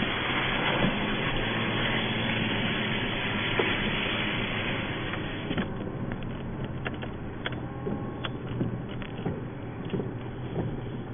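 Car driving on a wet road in heavy rain, heard inside the cabin: a steady engine hum under a dense hiss. About halfway through the hiss thins, and scattered short ticks and knocks come through.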